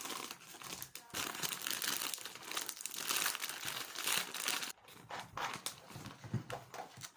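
Packaging being crumpled and handled: a dense crinkling rustle from about a second in, stopping abruptly a little before the five-second mark, followed by fainter handling noises.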